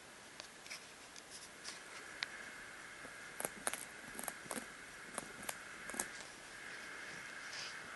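Hamster gnawing at a round seed treat ball: small irregular crunches and clicks, sparse at first and coming faster and louder in the second half.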